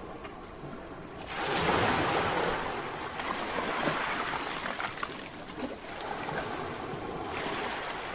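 Ocean waves washing in surges: a wash of surf swells up about a second in, eases off, and swells again near the end.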